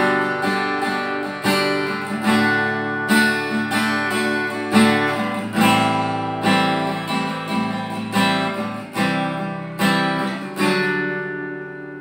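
Steel-string acoustic guitar strummed through a chord progression, a strong strum roughly every second, with a bright tone. The last chord rings out and fades near the end.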